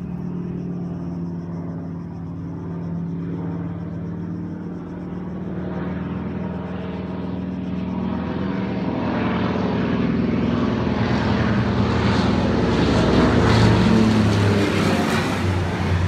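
Low-flying airplane approaching, its engine drone growing steadily louder and loudest near the end as it comes close.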